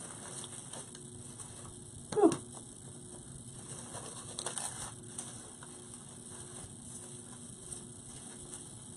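Faint rustling and light clicks of artificial greenery stems being handled and pushed into floral foam, with one brief louder sound falling in pitch about two seconds in.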